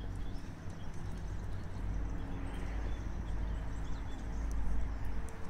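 Outdoor ambience: a strong, uneven low rumble with a steady low hum underneath, and faint short high chirps now and then.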